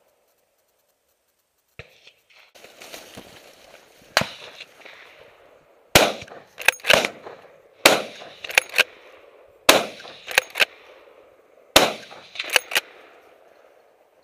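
Hunting rifle fired four times at wild boar, about two seconds apart, each loud shot ringing out across open country. Each shot is followed within a second by two sharp clacks. Before the first shot come soft rustling and a single click.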